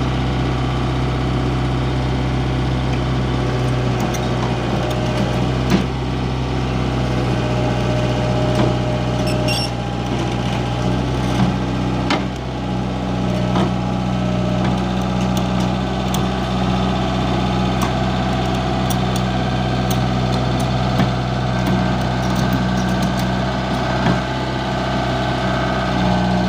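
Komatsu PC75 excavator's diesel engine running steadily, with scattered knocks and clatters.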